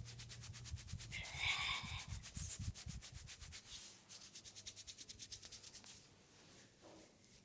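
Hands rubbing quickly over a mustard-oiled leg in a massage, a fast even rhythm of about eight strokes a second, louder between one and two seconds in, stopping about six seconds in.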